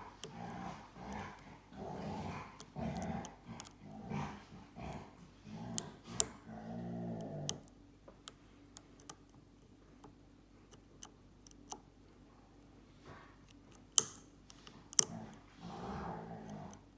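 Dogs growling in play, a run of short growls about twice a second for the first half and again near the end. In the quieter stretch between, small sharp clicks of lock picks working in a brass padlock.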